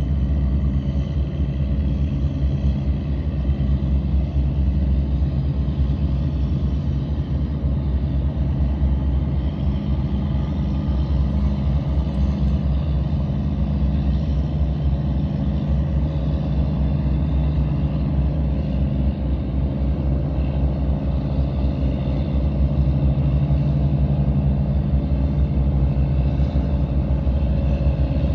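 Diesel engines of squid-fishing boats running under way, a steady low drone with several held low hum tones.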